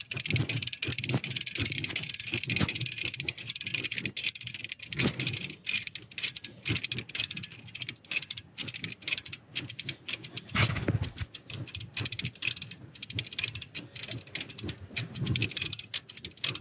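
Hand-cranked come-along winch being cranked under load, its ratchet clicking rapidly as it drags in a magnet line snagged on a heavy sunken object.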